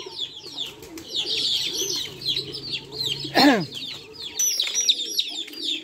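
Week-old desi chicken chicks peeping in many quick, high, falling chirps, with pigeons cooing low beneath them. About three and a half seconds in, one louder call drops sharply in pitch.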